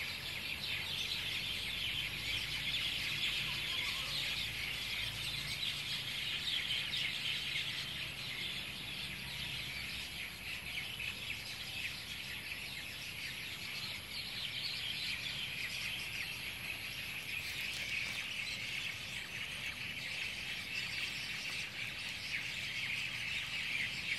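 A large flock of birds chirping together in a tree at dusk, the typical evening roost chorus. Countless short calls overlap into one steady chatter with no pause.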